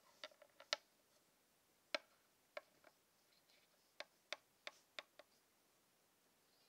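Small plastic toy figurines clicking and tapping against a tabletop as they are handled and set down: about a dozen sharp, irregular clicks, with near silence between them.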